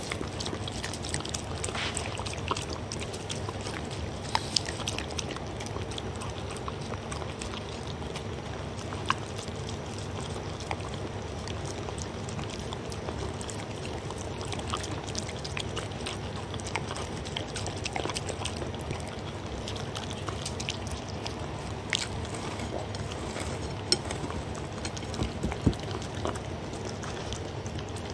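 A dog lapping and chewing soupy dried pollack and beef from a ceramic plate, close to the microphone: continuous licking and chewing with many short sharp clicks of tongue and teeth against the plate, a few of them louder.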